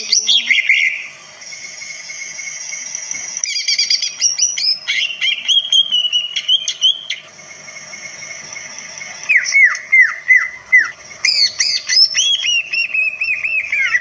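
Caged cucak ijo (green leafbird) singing a varied song of whistled, sweeping phrases in several bursts. One of them, about two thirds of the way in, is a run of quick downward-sliding notes.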